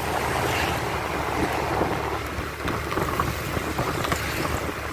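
Wind buffeting the microphone of a phone mounted on a moving motorcycle, over the steady low drone of the motorcycle's engine and tyres.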